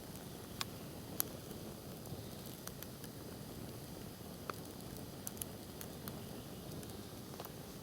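Wood campfire burning: a steady hiss broken by scattered, irregular sharp crackles and pops.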